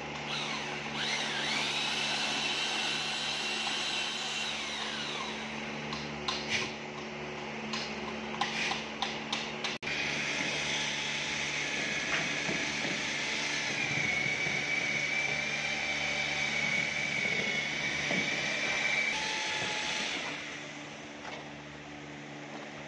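Electric drill-driven paddle mixer whirring as it stirs gypsum plaster in a bucket, winding down about five seconds in, followed by several knocks and scrapes. A similar steady motor whine runs again from about ten to nineteen seconds in over a constant workshop hum.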